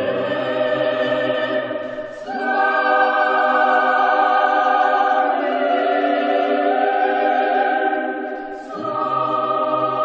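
A choir singing slow, sustained chords. About two seconds in the phrase breaks and a new chord begins; the lowest voices drop out until near the end, when they come back in with another new phrase.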